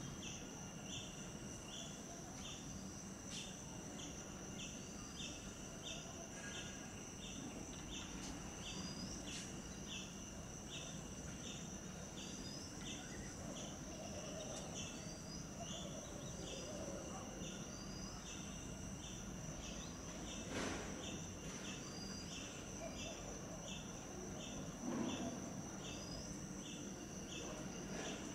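Evening insect chorus: a steady high-pitched whine with a regular chirp repeating about three times every two seconds, and short higher chirps now and then.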